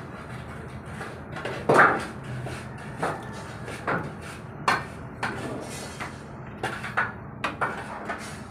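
Irregular metallic clicks and knocks, about a dozen, the loudest about two seconds in, from hands and tools working at the sheet-metal casing of a Kobewel S 200i inverter welding machine as it is taken apart.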